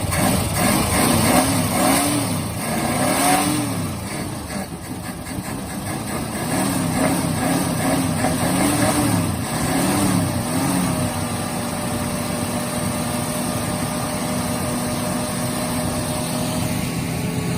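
1968 Ford Torino engine running after a hard start, revved up and down repeatedly in the first few seconds and again around the middle, then settling to a steady idle for the last several seconds.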